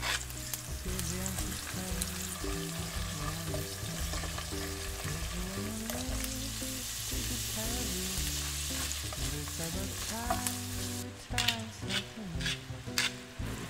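Sliced garlic and shimeji mushrooms sizzling in olive oil in a frying pan. The sizzle grows brighter after the mushrooms go in about six seconds in, and there are a few sharp clicks near the end. Soft background music plays underneath.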